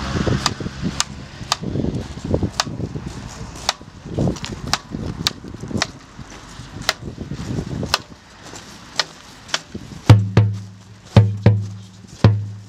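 Marching band drums beating a walking cadence: sharp stick clicks about two a second, with deep bass drum beats coming in about ten seconds in.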